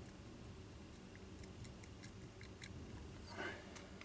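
Quiet room with a scatter of faint, small clicks as a super glue bottle is handled over a fly-tying vise, and a soft breath near the end.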